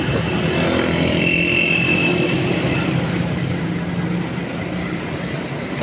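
Road traffic with a vehicle engine running steadily, and a brief high tone lasting about a second, starting a little over a second in.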